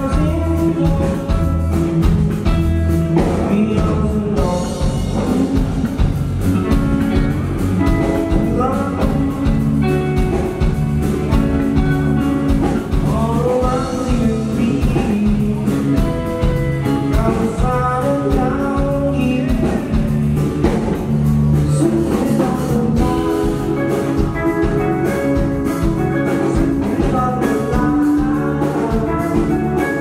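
Live rock band playing at full volume: electric guitar and drums driving a steady beat, with a man singing over them.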